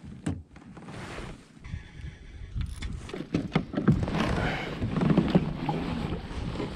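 Wind buffeting the microphone on a fishing kayak, with scattered small knocks and clicks from the kayak and gear being handled, growing louder about four seconds in.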